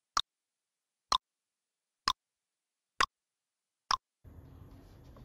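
Countdown-timer clock-tick sound effect: five sharp ticks about one a second against dead silence, then faint room tone comes in just after four seconds.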